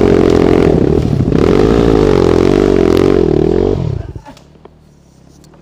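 Dirt bike engine revving hard, its pitch rising and falling repeatedly, then cutting off suddenly about four seconds in.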